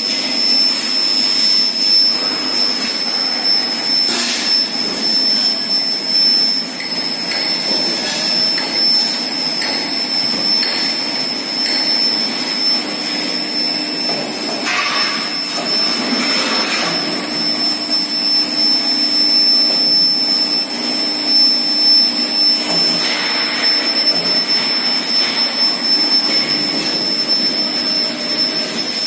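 Square-tube induction quenching line running: a steady machinery drone with a constant high-pitched whine and a low hum, swelling briefly with hiss a few times.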